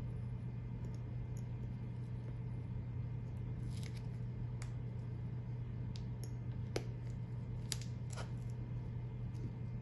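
Transfer paper being slowly peeled back from an adhesive stencil on a sneaker's toe box while an X-Acto knife tip holds the stencil down: a few faint crackles and ticks, the clearest about four seconds in and again between about seven and eight seconds in. A steady low hum runs underneath.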